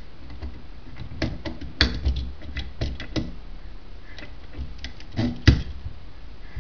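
Irregular metallic clicks and knocks as the parts of a Jaguar E-Type brake pedal box linkage are handled and fitted by hand on a workbench. The loudest knock comes about five and a half seconds in.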